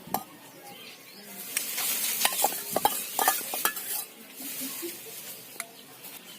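Metal ladle stirring and scraping in a pot of soup and clinking against the vessel as the soup is served out, with a hiss of moving liquid. The clinks and hiss are loudest between about one and a half and four seconds in.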